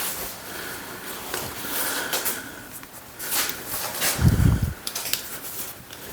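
Workshop handling noises: scattered light knocks and clicks, with one dull, heavy thump about four seconds in.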